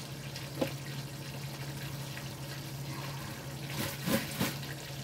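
Thick sweet-and-sour sauce simmering and bubbling in a wok, with a few louder pops about four seconds in, over a steady low hum.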